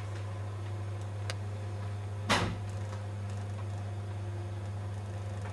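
Electric potter's wheel humming steadily as it spins, with a faint click just over a second in and a louder single knock about two seconds in.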